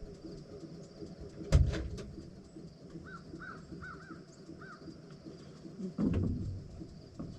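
Heavy machinery running low in the background, with a sharp loud knock about 1.5 s in and a heavier thud near 6 s. A bird gives four or five short calls in between.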